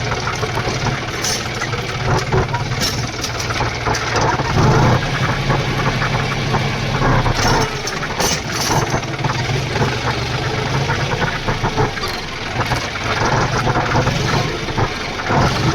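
Tractor engine running steadily at idle, with a few short sharp clicks or clanks over it.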